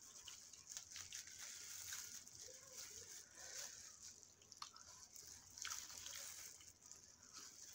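Faint wet eating sounds of snow crab being chewed and sucked from the shell, with a few sharp little clicks.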